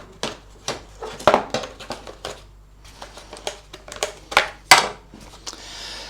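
A loose engine cover being handled and taken off a lawn mower: irregular clicks and knocks, with a short scrape near the end.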